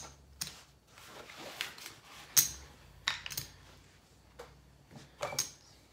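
Clay casino chips clicking together in a player's fingers: a scattered series of short, sharp clicks, with playing cards being gathered off a felt table.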